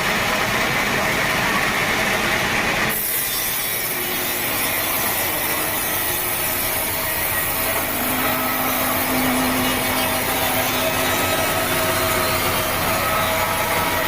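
Sawmill saw running steadily through teak wood. The sound changes abruptly about three seconds in and turns brighter and hissier.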